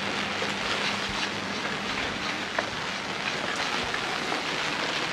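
Steady hiss of light rain falling on wet stone paving, with a few faint clicks.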